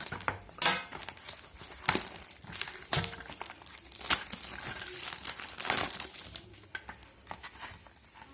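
Product packaging being opened by hand, crinkling and tearing in a string of irregular rustles and rips. The rustles come thickest over the first six seconds, then thin out.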